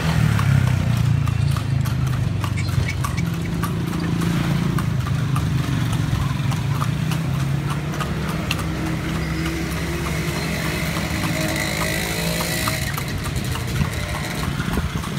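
A horse's hooves clip-clopping along the street as it pulls a horse-drawn carriage (kalesa), with a steady low rumble of the moving carriage beneath the hoof-beats.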